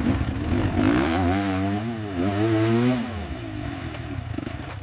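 Dirt bike engine revving hard, its pitch wavering up and down between about one and three seconds in.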